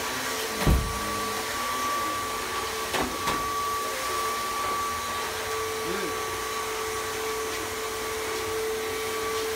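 Upright vacuum cleaner running steadily: an even motor drone with a held whine, and a thump just under a second in.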